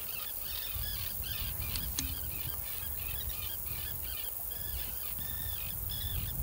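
A flock of terns calling over a pond: short arched calls repeating about three times a second, several birds at once, over a low wind rumble on the microphone. A brief click about two seconds in.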